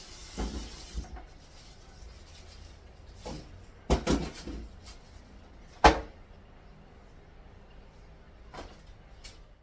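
Scattered knocks and clunks of cookware being handled while cooking, the loudest about four and six seconds in. A hiss stops about a second in.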